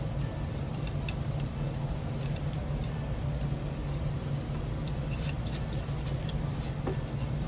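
Nigella seeds frying in hot oil in a nonstick pan, with scattered small crackles and pops as a silicone spatula stirs them. A steady low hum runs underneath.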